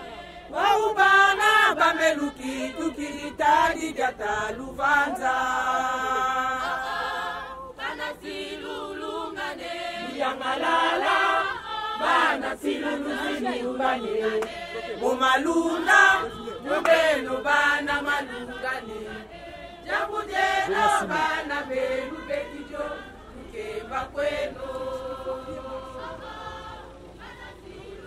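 A group of Kimbanguist church marchers singing together in chorus as they walk, with a long held chord about five seconds in.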